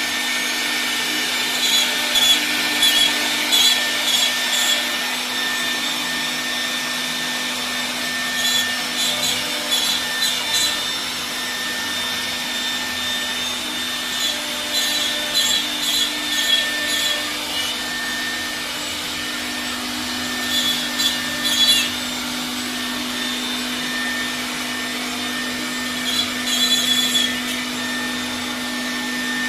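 CNC wood router running with a steady hum and whine from its spindle, its bit cutting a pattern into a wooden board in rasping stretches every few seconds.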